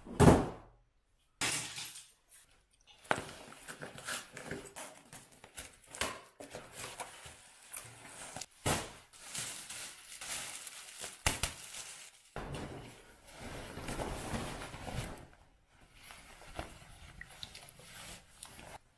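Clothing and wrapping being handled: rustling and crinkling, broken by many small clicks and knocks, with a sharp thump at the very start.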